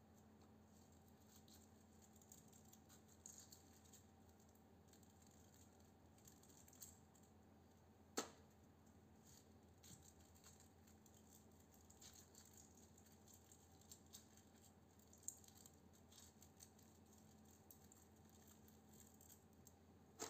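Faint rustling and light ticks of copper winding wire being pulled off a small toroidal transformer core and handled, with one sharper click about eight seconds in, over a low steady hum.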